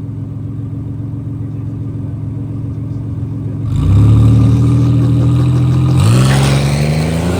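Drag-race car engines idling steadily, then about halfway through an engine revs hard and the pitch climbs as the car launches and accelerates, with a second rising sweep near the end.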